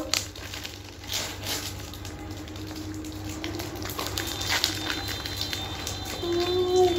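Plastic ice-cream wrappers crinkling and tearing as they are pulled open by hand, with a short hummed voice near the end.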